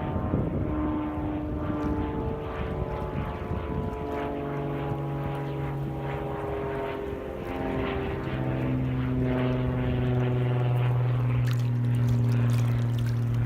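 Propeller airplane engine droning as it passes overhead, its pitch sliding slowly lower.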